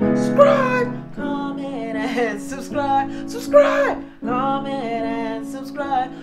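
A woman singing a melodic line over chords played on an electronic keyboard, the chords re-struck about every second or so.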